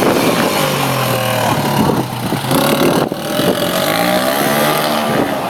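A motor vehicle engine running loudly, its pitch steady at first and then rising and falling as it is revved.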